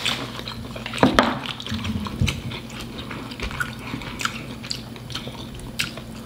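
Close-up wet eating sounds: small smacks and clicks, with a louder one about a second in, as buttery seafood-boil sauce is spooned and dripped over a potato.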